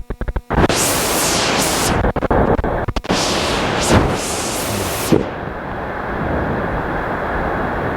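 The steady, heavy rush of a large waterfall pouring close by, with surges of wind and spray buffeting the microphone.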